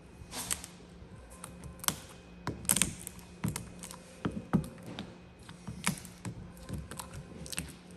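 Hands working vinyl wrap film onto a door handle: irregular small clicks and taps mixed with short rustling scrapes of the film, the loudest cluster a few seconds in. A faint steady hum sits underneath.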